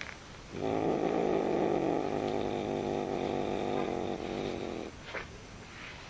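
A grumpy cat growling: one long, low growl of about four seconds, starting about half a second in, followed by a few faint short sounds.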